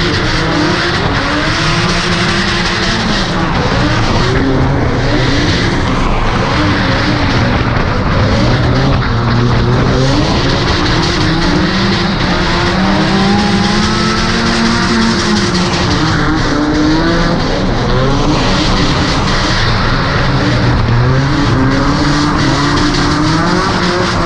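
Drift car engine revving up and down repeatedly as it slides through the turns of a tandem drift on a wet track, heard from inside the windowless cabin, over a steady rush of tire and road noise.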